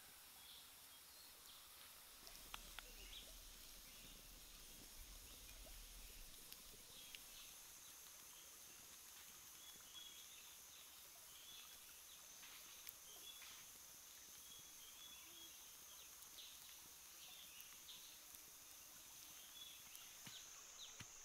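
Faint outdoor ambience close to silence: a steady high hiss with short high chirps every second or so, and scattered faint clicks.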